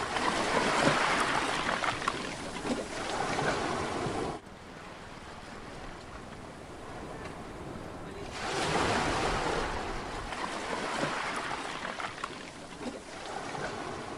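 Sea surf washing on a beach, with wind noise on the microphone. The sound drops away suddenly about four seconds in and swells back about four seconds later.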